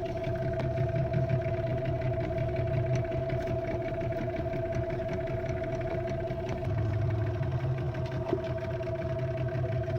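Fishing boat engine running steadily at an even speed, a constant low hum with a steady higher-pitched tone over it.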